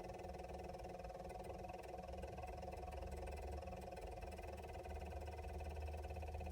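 Steady rapid electrical chattering buzz from the 2000 Chevrolet Blazer's electrics, the erratic clicking of a no-crank, no-start condition caused by a rusted battery ground connection.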